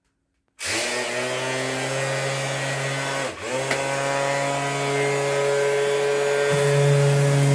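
Aldi electric sanding machine switched on about half a second in, its motor spinning up to a steady whine. Its speed dips briefly near the middle and recovers, and the tone shifts again near the end.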